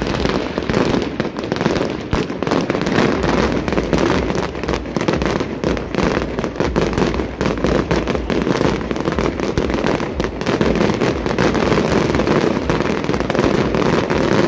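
Fireworks display going off in a dense, continuous barrage of rapid cracks, pops and bangs, with no break.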